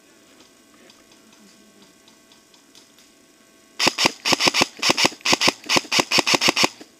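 Airsoft gun firing a quick, uneven string of about twenty shots over roughly three seconds, starting a little past halfway.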